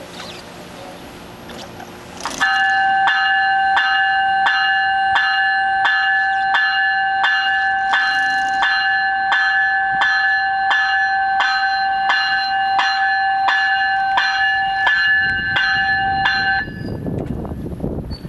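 GO Transit train's bell ringing steadily at about two strokes a second for roughly fourteen seconds, then stopping. Near the end a low rumble of the train rises.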